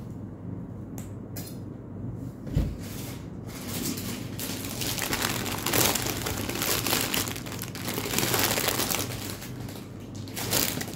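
Crinkling and rustling of packaging being handled, starting about three and a half seconds in and dying down near the end, with a dull thump just before it begins.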